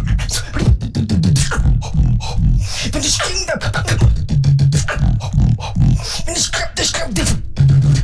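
Beatboxing: a rapid run of vocal percussion with kick-drum thumps, snare clicks and hi-hat hisses, mixed with low humming bass tones and sliding vocal sound effects, played back from a performance video.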